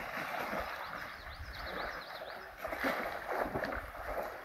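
A dog wading and splashing in a shallow creek, water sloshing irregularly around it over the flow of the stream.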